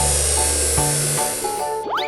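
Bouncy children's cartoon background music with a loud hissing sound effect laid over it. The hiss stops near the end, and a quick rising whistle-like glide follows.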